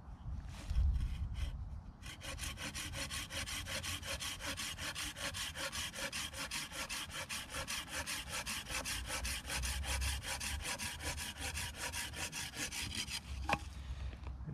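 Hand saw cutting through a wooden branch in quick, even back-and-forth strokes. A few tentative strokes start the cut, the steady sawing runs for about eleven seconds, and it stops with a sharp click shortly before the end.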